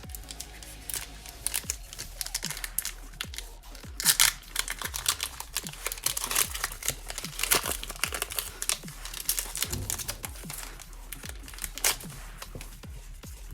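Foil wrapper of a Pokémon TCG Chilling Reign booster pack crinkling and tearing as it is torn open by hand, a dense run of sharp crackles that is loudest a few seconds in.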